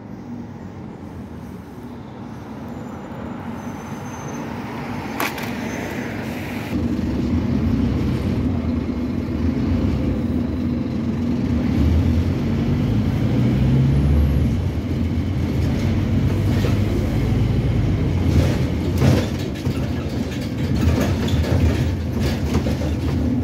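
Scania OmniCity double-decker bus with a five-cylinder diesel engine. The low engine drone grows louder over the first seven seconds or so, then runs loud and steady as the bus drives, heard from on board. There is a single click about five seconds in.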